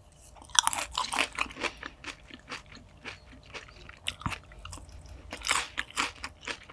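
Close-miked crunching and chewing of a mouthful of crisp salad leaves with caviar. It is a rapid, irregular run of crunches, densest about half a second in and again near the end.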